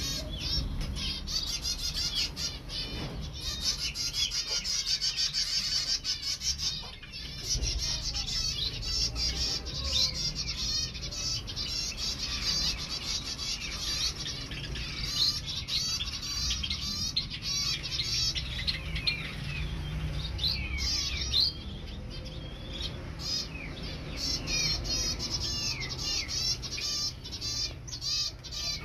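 A flock of aviary finches, zebra finches and Bengalese finches, chirping and calling nonstop in short, high, overlapping notes, with occasional wing flaps as birds move about.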